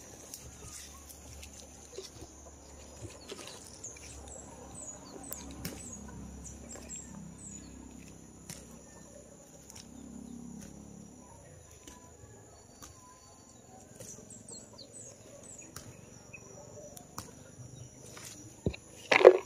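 Outdoor garden ambience: a steady high-pitched insect drone with small bird chirps over it, and soft rustling of chilli plant leaves being handled. A brief loud sound comes near the end.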